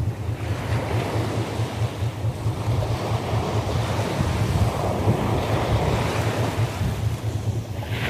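Sea waves breaking and washing on the shore in a continuous rushing surf, with wind buffeting the microphone in a flickering low rumble.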